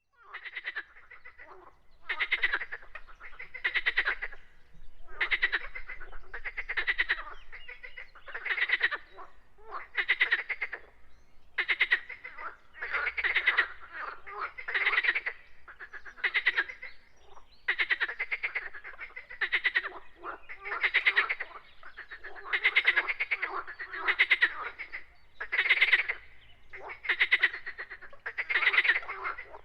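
Frogs croaking: a steady series of rattling, rapidly pulsed calls, each under a second long, coming about once a second.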